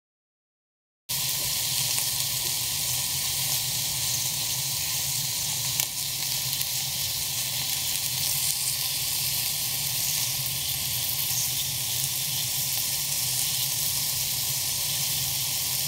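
Slices of wild boar tongue frying in oil in a pan: a steady sizzle that starts suddenly about a second in, with one short click partway through.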